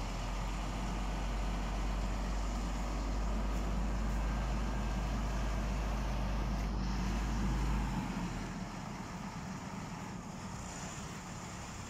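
Heavy diesel engine of a Doosan MT41 articulated dump truck running with a steady low drone, easing off about eight seconds in.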